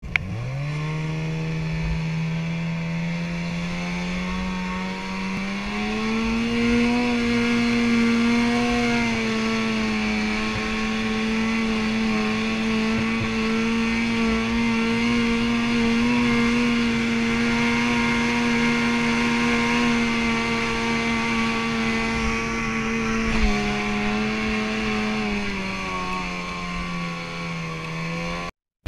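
Ski-Doo snowmobile engine running at steady high revs under load, uphill through snow, with a steady hiss from the track and the wind. The revs rise about six seconds in and ease off in two steps near the end, then the sound cuts off suddenly.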